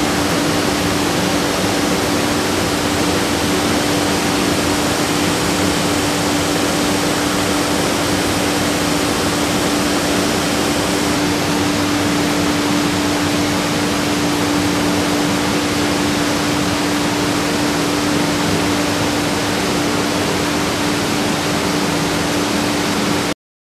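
Busellato Jet Optima C21 CNC working center running while machining a wooden door: a steady rushing noise with one constant hum, cutting off suddenly near the end.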